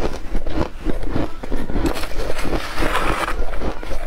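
Shaved ice being chewed close to the microphone: a rapid run of crisp crunches, with a metal spoon scraping into the ice mound.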